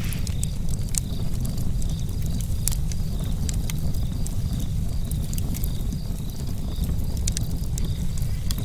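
Campfire burning: wood crackling with frequent, irregular sharp pops over a steady low rumble.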